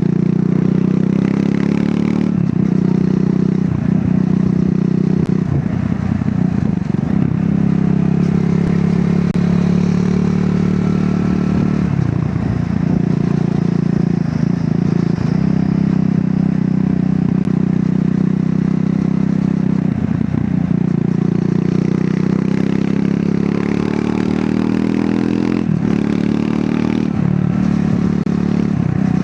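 Triumph Scrambler 400 X's single-cylinder engine running through its stock exhaust while riding, the engine note rising and falling slightly, with several brief dips where the throttle eases.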